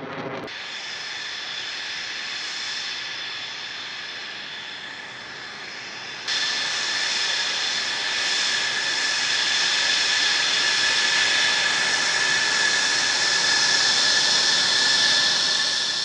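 F-16 Fighting Falcon's single jet engine: a steady rushing roar with a high whine over it. It steps up suddenly about six seconds in, then swells slowly louder.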